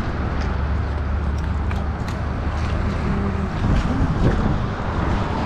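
Steady road and engine rumble inside a moving truck's cab.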